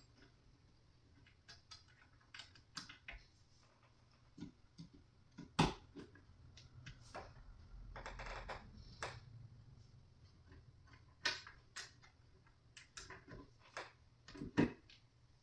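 Scattered light clicks and knocks of flat-pack nightstand parts being handled during assembly, with one louder knock about five and a half seconds in and a soft rubbing sound for a second or two in the middle.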